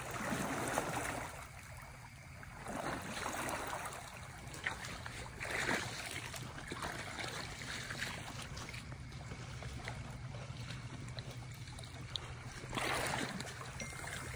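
River water rushing and sloshing around the legs of someone wading through the current, with a few louder surges of splashing.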